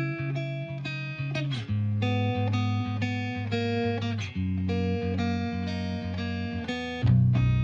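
Background music: a plucked melody over low held bass notes, getting louder about seven seconds in.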